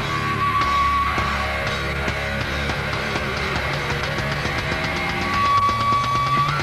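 Live heavy metal band playing: distorted electric guitars, bass and a drum kit in a fast, aggressive groove. A high held note rings out for about a second near the start and again from about five seconds in.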